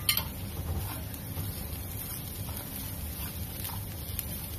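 Spatula stirring and scraping grated coconut, sugar and cashews around a nonstick frying pan: a sharp clack just at the start, then a few soft scrapes over a steady low hum.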